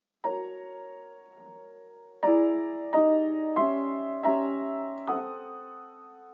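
Solo piano playing slow chords: one chord left to ring and fade, then five more struck about two-thirds of a second apart, the last dying away.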